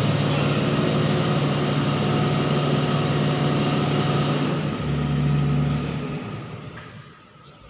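A vehicle or machine engine running steadily. About five seconds in its note shifts, then it dies away over the next second and a half.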